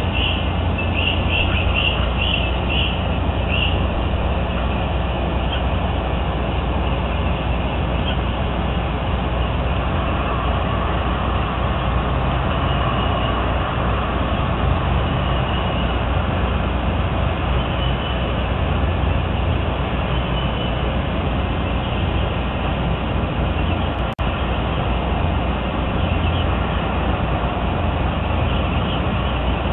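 Steady low rumble of outdoor background noise on the camera microphone, with a quick series of high bird chirps in the first few seconds and fainter chirps later. The sound drops out briefly about 24 seconds in.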